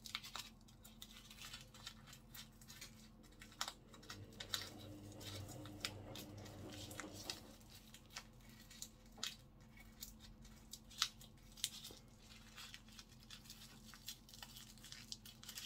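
Pleated paper baking cup being peeled and torn away from a baked custard tart: soft, irregular crinkling and tearing of the paper with scattered small crackles.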